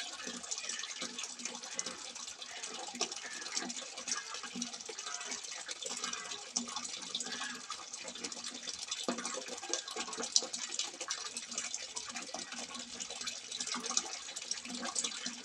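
Water from a simple spout splashing and trickling continuously into the water below.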